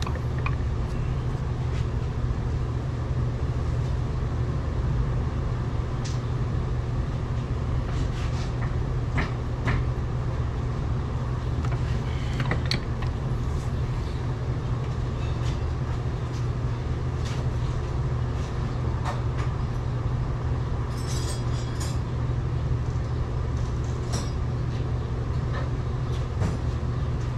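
Steady low mechanical hum with scattered light metallic clicks and taps from tools working on the engine mount.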